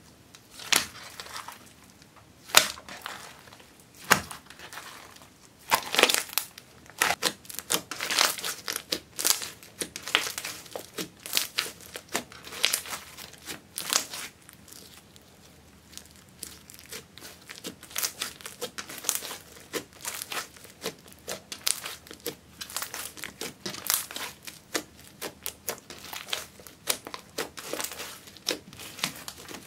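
Hands kneading, squeezing and pressing a thick slime mixed with crushed makeup and glitter: irregular crackles, pops and squelches, easing off briefly about halfway.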